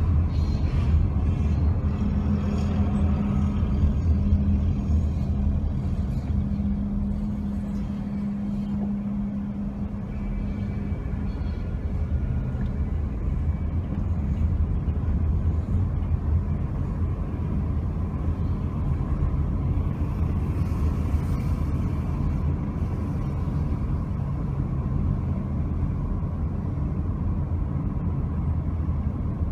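A car driving slowly in town, heard from the car itself: a steady low rumble of engine and tyres on the road, with a steady hum that drops away about ten seconds in.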